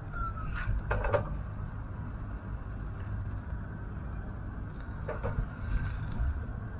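Metal tongs clicking a few times against the wire grate of a small charcoal grill as meat is turned and lifted: short clicks about a second in and again near five seconds. Over a steady low rumble.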